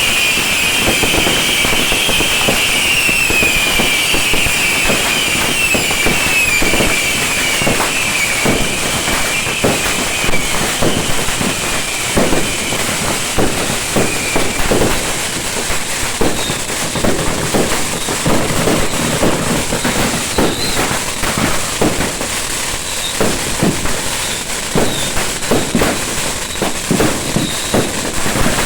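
Beehive fireworks: a barrage of small rockets going off, with dense, irregular bangs and pops throughout. A shrill high whistling from the rockets over the first half fades out about halfway through, leaving the bangs.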